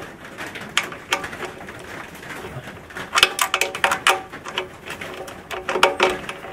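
Irregular clicks and metallic rattles of hand tools turning the mounting bolts of a trailer tail light, busiest about halfway through and again near the end. Short, low, steady tones sound along with them at those times.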